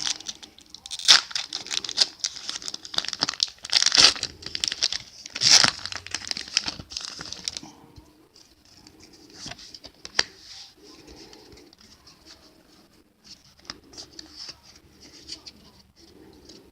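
Foil Pokémon card booster pack being torn open and crinkled, with loud sharp crackling for about the first half. After that, quieter soft rustling of the cards being handled.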